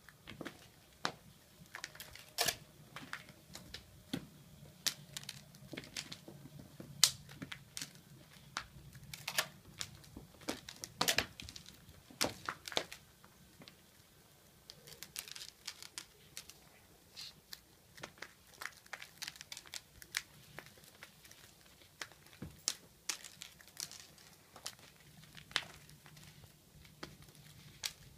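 Irregular scratchy clicks and scrapes of cats' paws and claws scrabbling on a hardwood floor and a ridged exercise mat as a kitten and an older cat play.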